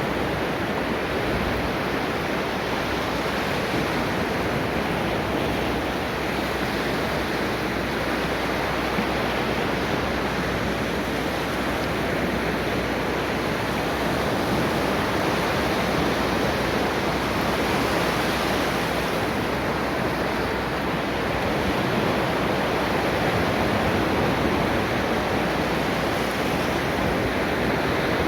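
Ocean surf breaking and washing on a beach: a steady rush of wave noise that swells and eases gently over several seconds.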